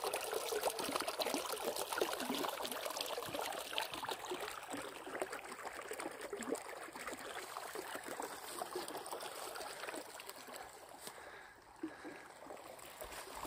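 Small, shallow, clear stream trickling and babbling over a little pool. It grows steadily fainter through the second half as the stream falls away from the microphone.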